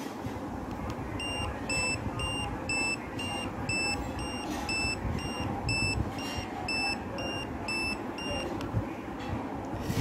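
Wireless bicycle turn-signal light set beeping in time with its flashing signal: short high-pitched beeps about two a second. They start about a second in and stop near the end.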